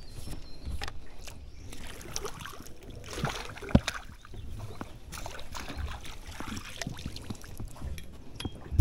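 Scattered clicks and knocks with brief water splashes as a small hooked Australian bass is brought in and landed, with one sharp knock a little under four seconds in.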